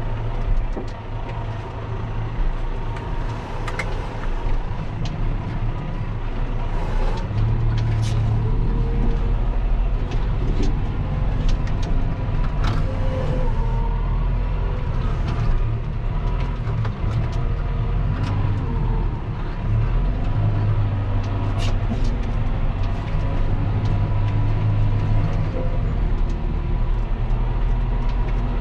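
John Deere 6140M tractor's diesel engine running steadily under load, heard from inside the cab while pulling a field cultivator, with scattered sharp clicks and rattles.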